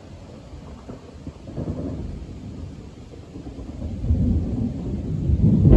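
Thunder from a nearby lightning strike rumbling deep and low, swelling briefly early on, then building much louder from about four seconds in to its loudest near the end.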